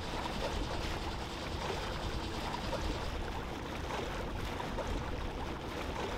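Steady low rumble of a small sailboat's inboard engine idling as the boat holds position, with water trickling along the hull.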